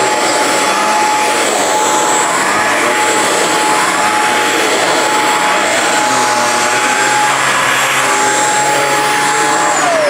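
Shark Stratos corded stick vacuum running as a handheld with its motorized hand tool on carpet: a steady high motor whine over rushing suction noise. The motor starts to spin down, its whine falling, right at the end.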